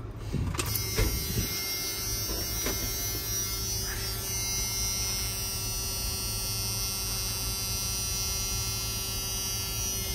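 A steady electric buzz with many overtones, holding for about ten seconds and cutting off suddenly, with a few knocks about a second in, as the key is tried on a no-start 1993 Ford F-250 7.3 IDI diesel. The engine does not start; the owner suspects the starter or its solenoid.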